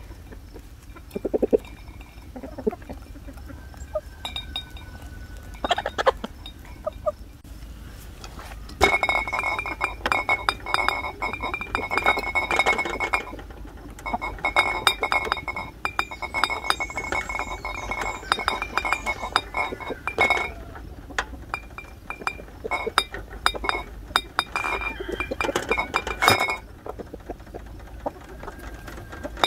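Raw beef and sliced onion being pressed by hand into glass jars on a metal tray: a dense run of clinks, knocks and wet handling sounds against the glass that goes on for long stretches and stops near the end. A hen clucks briefly at the start.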